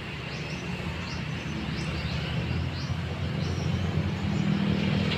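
Outdoor ambience: a low, engine-like rumble that slowly grows louder, with a few faint short bird chirps over it.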